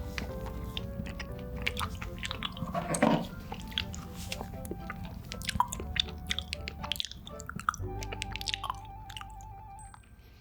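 Close-miked chewing and biting of food, with many small wet clicks and crackles, over soft background music; the clicks thin out near the end.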